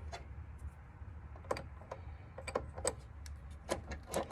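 Scattered sharp metallic clicks and clinks, about a dozen in all, as a worn battery terminal clamp and its cables are worked loose and handled.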